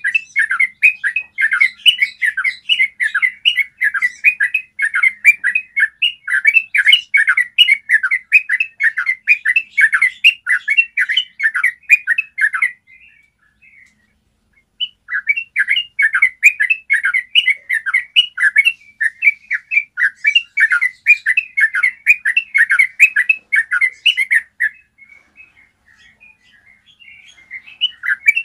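Yellow-vented bulbul singing its long rolling song: a fast run of repeated notes that breaks off for about two seconds midway, then resumes, thins to a few scattered notes and picks up again at the end.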